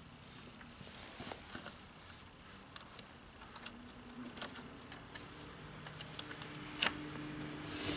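Steel saw chain clinking and ticking as it is handled and fitted back around a chainsaw's guide bar, with light clicks growing more frequent and one sharper click near the end.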